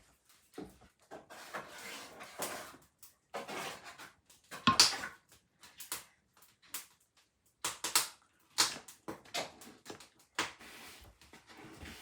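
Irregular clicks, knocks and rustles of things being handled, with one sharper knock about five seconds in.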